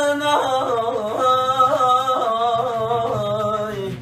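A man singing an uzun hava, drawing the word "babasına" out over one long, wavering melismatic line that fades near the end.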